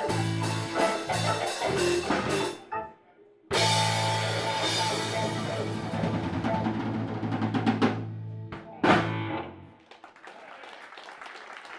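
Live blues band (electric guitar, bass guitar, drums and keyboard) playing the end of a song. The band stops dead for a moment about three seconds in, then comes back on a long held final chord over busy drums and cymbals, closes with a last hit about nine seconds in, and dies away.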